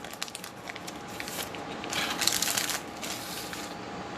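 Plastic wrapper of a pack of football trading cards crinkling as it is opened, with the cards handled; the crinkling is loudest for about a second near the middle.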